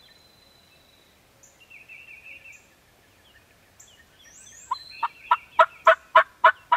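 A turkey yelping: a run of about eight loud, evenly spaced yelps, some three a second, starting about two-thirds of the way in. Songbirds chirp and trill faintly before it.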